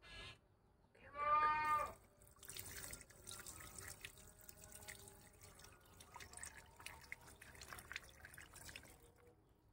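Water pouring and splattering from a tipped plastic basin onto a plastic sheet, starting a couple of seconds in and stopping near the end. Before it, about a second in, a short high-pitched cry.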